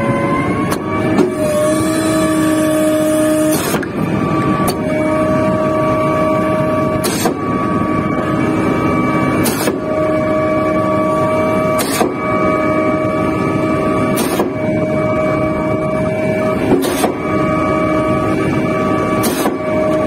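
Putzmeister concrete pump's hydraulic system running under pressure: a steady multi-pitched whine from the hydraulic pump, cut by a sharp clack about every two and a half seconds as the pumping cylinders change over.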